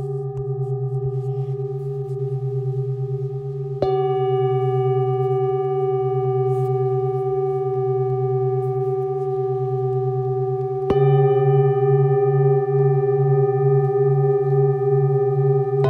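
Singing bowls ringing in long overlapping tones over a low, steadily pulsing hum. A bowl is struck about four seconds in and another about eleven seconds in, each adding a new ringing tone and making the sound louder.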